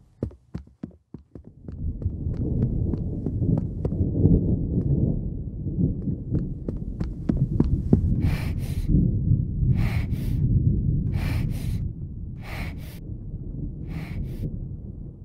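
Film sound effects: a run of quickening clicks gives way to a thick low rumble. From about eight seconds a doubled pulse, like a heartbeat, comes in and repeats roughly every one and a half seconds.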